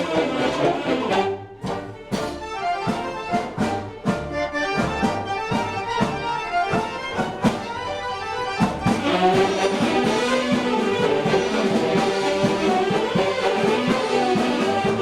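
Mummers string band music: a rhythm of sharp, choppy strummed and struck accents through the first half, then a fuller sustained ensemble with reeds and accordions from about nine seconds in.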